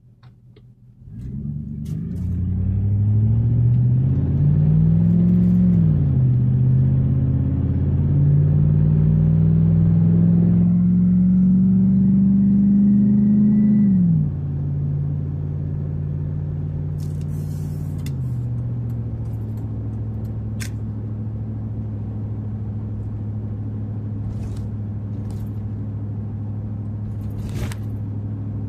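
A 2004 Chevy Avalanche Z71's V8, fitted with a K&N cold air intake, heard from inside the cab as the truck pulls away from a stop under firm acceleration. The engine note climbs in pitch, drops at each automatic upshift (about five seconds in, again at about fourteen, and once more a few seconds later), then settles into a steady cruise.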